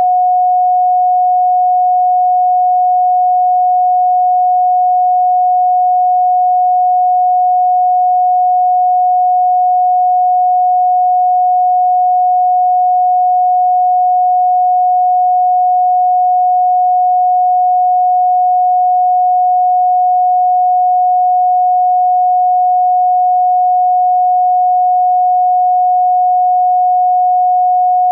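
A steady, loud pure sine tone at 728.131 Hz, held at one pitch and level without a break.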